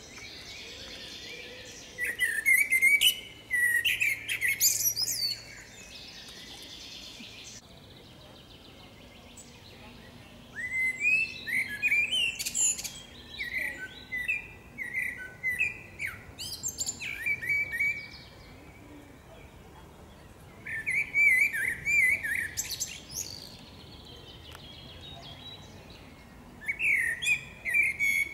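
Common blackbird singing: about four separate song phrases of quickly varied warbled notes, with pauses of a few seconds between them.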